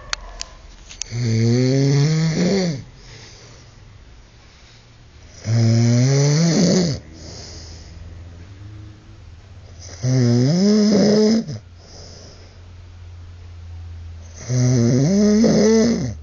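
A man snoring loudly in deep sleep: four long snores, each about a second and a half, coming roughly every four and a half seconds.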